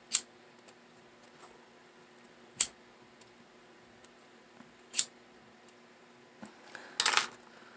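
Sharp single clicks about two and a half seconds apart, then a short cluster of clicks and rustling near the end: a hand-held lighter being worked while satin ribbon is sealed and pinched.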